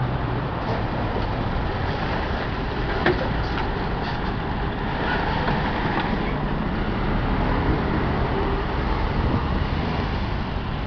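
Steady road traffic on a busy street, cars and trucks passing, with a truck going by close about halfway through.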